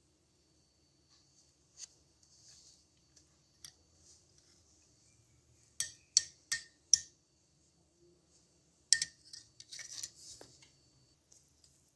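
Metal spoon clinking against a ceramic mug as chocolate powder is tipped into milk and stirred: a few scattered clinks, then four sharp ones in quick succession about six seconds in, and another cluster of clinks and scraping around nine to ten seconds.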